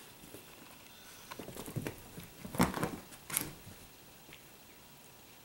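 Italian greyhounds scuffling and wrestling over plush toys on carpet: irregular rustling and scrabbling, with a few sharp, louder noises between about one and a half and three and a half seconds in, then only faint shuffling.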